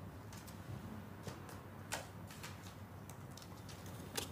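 Scattered taps on a laptop keyboard: a handful of single key clicks at uneven intervals over faint room hiss.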